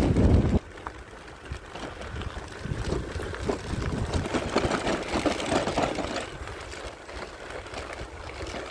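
Wind rushing over the microphone and the rolling noise of an e-bike on the move, opening with a loud blast of wind in the first half-second.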